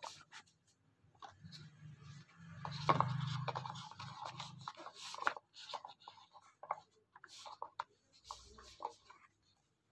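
Cardboard watch boxes and their lids handled on a table: scattered scrapes, rubs and light taps. A low hum runs underneath for a few seconds in the first half.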